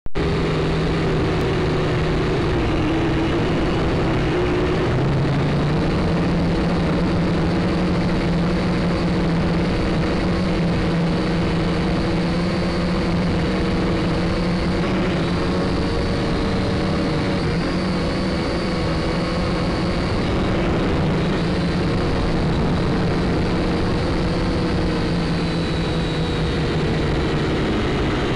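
Syma X5C toy quadcopter's four small motors and propellers buzzing steadily in flight, heard right at the drone's onboard camera. The pitch steps up slightly about five seconds in and sags a little near the end as the throttle changes.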